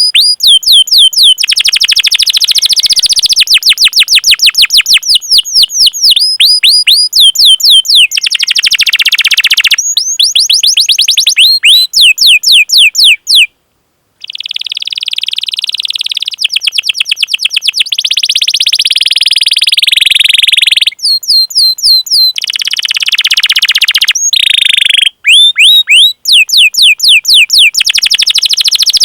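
Domestic canary singing a long song: runs of quick, high, downward-sweeping 'cuit cuit' chirps, several a second, alternating with fast rolled trills. It breaks off briefly about halfway through.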